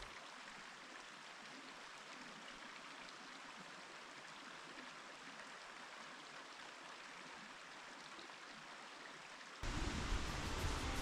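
Steady rush of cascading creek water at Cataract Falls, an even hiss with no rhythm. Music comes back in near the end.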